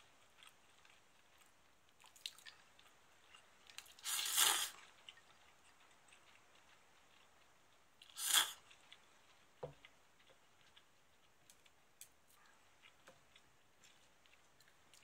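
Somen noodles slurped twice: two loud, noisy slurps, a longer one about four seconds in and a shorter one just after eight seconds, with a few small clicks in between.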